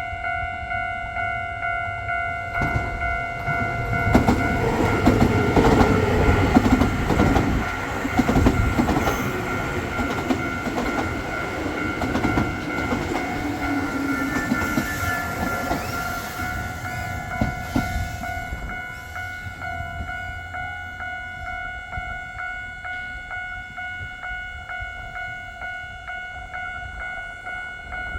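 Japanese level crossing warning bell ringing with a steady, even beat while a Nankai Main Line electric train passes over the crossing. The train builds up a few seconds in, is loudest soon after, and fades away after about eighteen seconds, leaving the bell ringing on its own.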